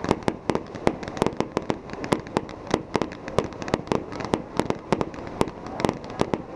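Aerial fireworks display bursting in rapid, irregular succession, several sharp bangs a second.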